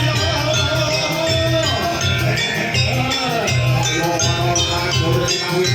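Jaranan Buto ensemble music: a pulsing drum beat with evenly spaced, jingling metallic percussion under a wavering melody line.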